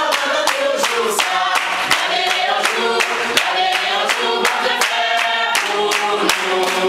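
Choir singing over a steady beat of sharp strikes, about three a second.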